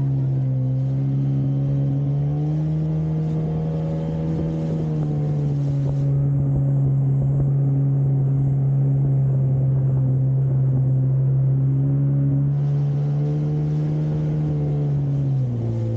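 Jet ski engine running steadily at cruising speed, its pitch rising a little a couple of seconds in and dropping near the end as the throttle eases.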